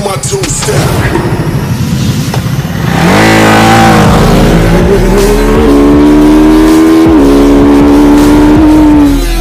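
2021 Ducati Monster's 937 cc Testastretta L-twin accelerating hard from a launch, coming in loud about three seconds in. The engine note climbs and drops back at two quick upshifts, then cuts off near the end.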